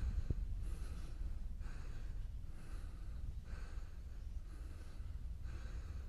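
A walker's breathing, soft puffs about once a second, over a low steady rumble.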